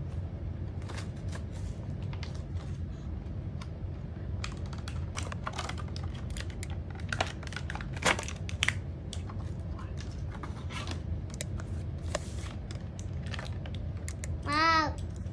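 Clear plastic blister packaging of a Hot Wheels die-cast car crinkling and clicking in irregular snaps as it is handled and pulled open, over a steady low hum. Near the end a child gives a short, high pitched vocal sound.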